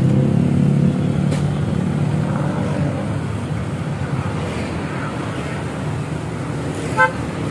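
Steady hum of a nearby motor vehicle engine running, easing off slightly after the first second, with a faint tick partway through.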